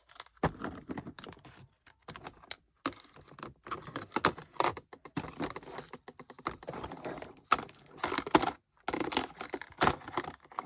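Rapid, irregular clicking and clattering of small hard plastic toy pieces being handled.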